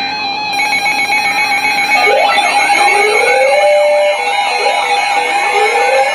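Layered electronic emergency alarm tones: several steady tones sound together, and from about two seconds in a siren-like sweep rises in pitch again and again, roughly every two and a half seconds.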